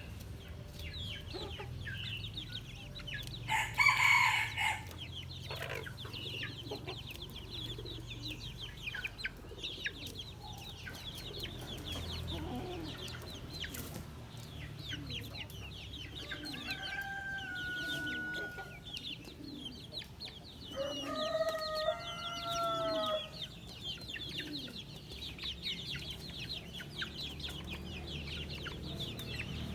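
A flock of chickens clucking, with many small birds peeping all the way through. A rooster crows about halfway through and again a few seconds later, and there is a loud squawk-like burst about 4 s in.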